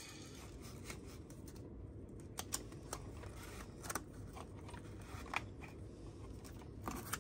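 Hands working on an RC buggy's chassis, tucking in the battery strap and wires. Several faint, short clicks and handling noises are scattered over a low steady hum.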